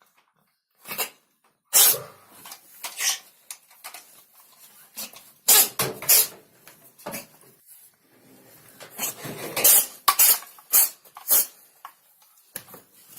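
Kitten sneezing over and over: short, sharp sneezes at irregular intervals, a second or two apart.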